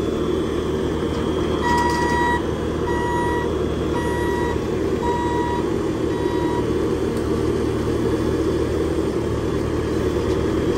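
Bobcat compact track loader's diesel engine running steadily, with its reversing alarm beeping five times, about once a second, starting about two seconds in.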